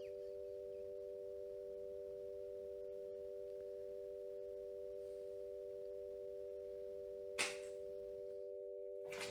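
A steady electronic drone of three pure tones held together without changing pitch. A short hissy burst comes about seven and a half seconds in.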